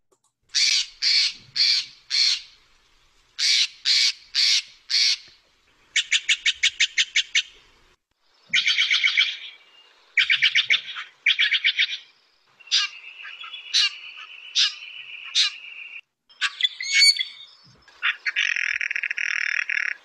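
Recorded Steller's jay calls: two groups of four harsh, rasping calls, then a quick run of about ten notes, followed by a mix of other harsh calls and a buzzy call near the end.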